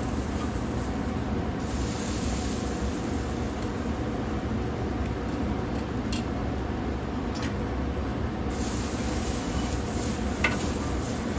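A steady low rumbling noise, over which short ribs sizzle and hiss on a hot kamado grill grate. Near the end a wire grill brush scrapes across the hot grate, with one sharp click.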